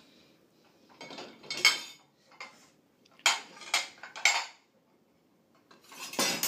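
Ceramic plates and bowls clinking and clattering against each other as they are lifted from a dishwasher rack and stacked into a pile, in several short clusters of clinks with quiet gaps between.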